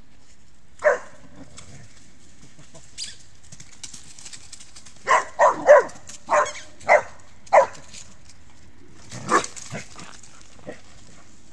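Dog barking in short, sharp single barks while playing with another dog over a ball: one bark about a second in, a quick run of about six between five and eight seconds, and another near nine and a half seconds.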